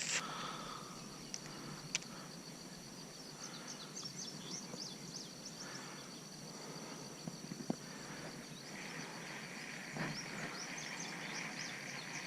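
Outdoor summer ambience: a steady, high insect drone throughout, with a run of short bird chirps in the middle and a second steady insect buzz coming in about three-quarters of the way through, plus a few faint ticks.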